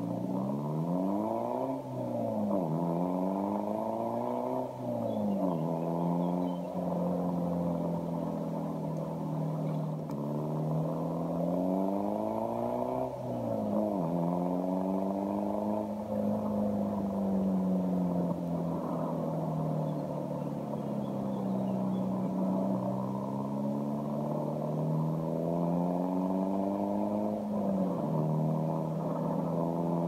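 Exhaust of a Peugeot 206 2.0 HDi four-cylinder turbodiesel under way: the revs climb and drop sharply twice in the first few seconds as it shifts up through the gears, then settle into steady running with slow rises and falls, with further quick shifts around the middle and near the end.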